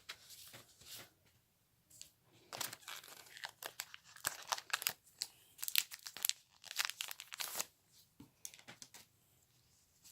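Foil wrapper of a Pokémon trading-card booster pack being torn open and crinkled, a run of short crackles that starts about two seconds in and stops shortly before the end.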